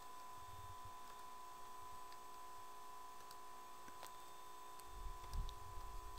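Quiet recording background: a steady high electrical hum over faint hiss, with a few faint computer mouse clicks and a low rumble about five seconds in.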